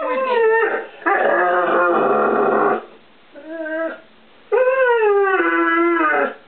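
Young English Setter howling and woo-wooing in four drawn-out calls. The first falls in pitch, the second is rougher, the third is short, and the last and longest rises, falls and then holds. He is begging to be given the treats he knows are stored in the kitchen.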